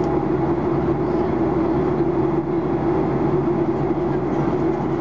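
Steady cabin noise of a Boeing 737-800 in flight, heard from a window seat over the wing: the CFM56-7B engines' drone, a steady low hum over a rush of air, with no change in pitch or level.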